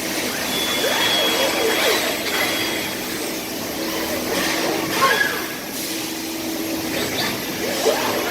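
Industrial machinery running: a steady mechanical hum with short whirring sounds that rise and fall in pitch.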